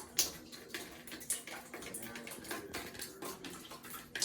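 Water leaking from a water heater through a ceiling, falling in irregular drips and splashes.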